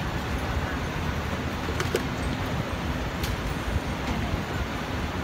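Steady background noise of a busy night-market food stall, with a couple of light clicks about two and three seconds in.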